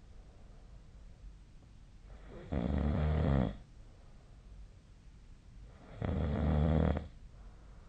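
A sleeping person snoring: two snores about three and a half seconds apart, each lasting about a second, with quiet breathing between them.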